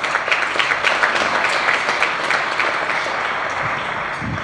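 A roomful of guests applauding: many hands clapping steadily, easing off slightly toward the end.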